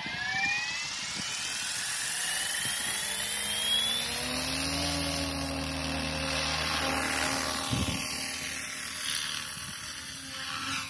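SAB Goblin 380 electric RC helicopter spooling up. A high motor whine rises in pitch over the first few seconds, then settles into a steady rotor hum at full head speed, with the helicopter in flight near the end.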